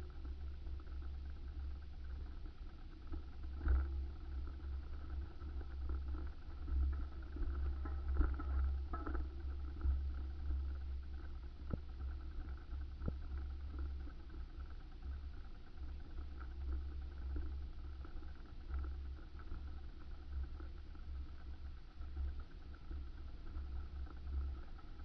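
Wind buffeting the microphone during a bicycle ride, a gusting low rumble with a faint steady hum underneath and a few small knocks.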